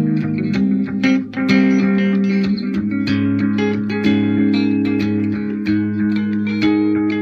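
Electric guitar improvising a melodic line, quick picked notes over held, ringing low notes.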